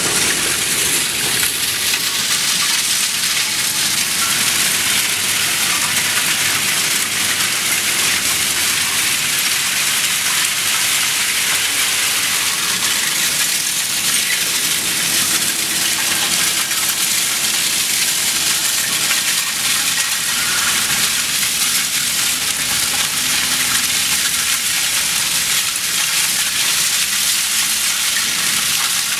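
Shredded scrap steel pouring off the end of a conveyor stacker onto the pile: a steady, dense rattle of many small metal pieces landing, mostly high-pitched.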